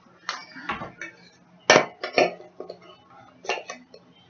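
Clink and knock of the clamp-on reflector lamp and grow-light parts being handled and fitted together: a series of sharp, irregular strikes, the loudest a little under two seconds in.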